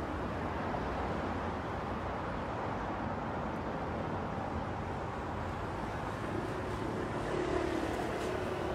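Steady road noise heard from inside a moving car's cabin: tyre roar and engine drone at a constant level, with a faint steady hum coming in about six seconds in.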